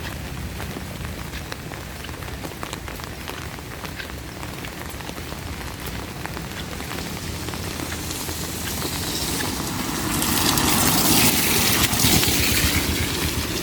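Steady rain with scattered drops ticking close by, swelling from about eight seconds in into a much louder rushing hiss that eases slightly near the end.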